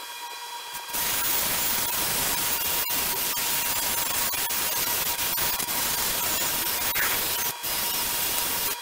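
A steady, loud hiss that starts suddenly about a second in, breaks off for a moment near the end and then stops abruptly.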